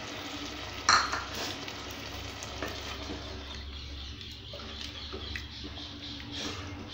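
A spoon stirring coconut-milk mushroom curry in a pan, scraping and tapping against the pan over the steady hiss of the curry simmering. A sharp knock of the spoon on the pan about a second in is the loudest sound.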